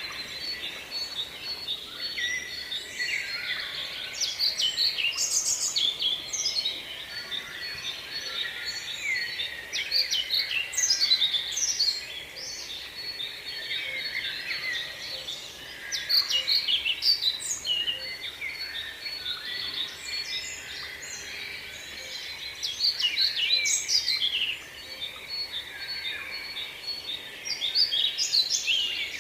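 Several small songbirds singing and chirping together, with louder bursts of song every few seconds over a steady chorus of calls, and one fast repeated high note running underneath.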